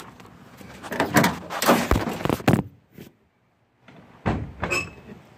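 Car door being opened and handled: a run of latch clicks, clunks and rattles, broken by a moment of silence, then more clunks and a short high squeak near the end.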